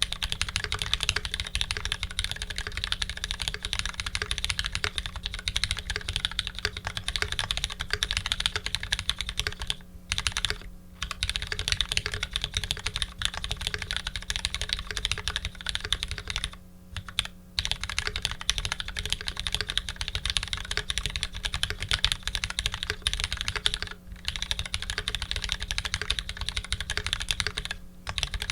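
Continuous fast typing on a custom mechanical keyboard with lubed Retooled Black linear switches, an aluminium plate and GMK keycaps: dense key clacks broken by a few brief pauses.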